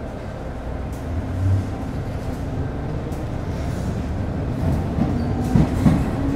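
Interior running sound of an MTR Metro Cammell M-Train electric multiple unit with GEC GTO chopper traction, picking up speed with a low rumble from the wheels and track. Faint chopper and motor tones begin to rise in pitch near the end. There is a low thud about a second and a half in, and a few knocks near the end.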